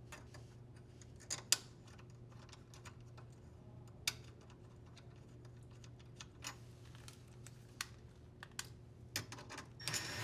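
Scattered light clicks and taps as a plastic harness connector bracket is handled and slid into its slots on a washer transmission, a few sharper clicks standing out, with the clicks coming closer together near the end. A faint steady hum underneath.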